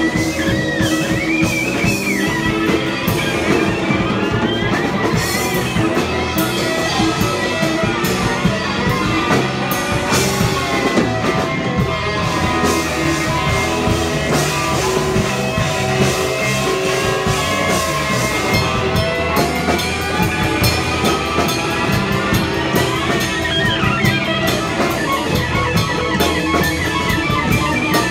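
Punk rock band playing live and loud with no vocals: electric guitar over a steady drum kit beat, with bending lead notes high above the chords.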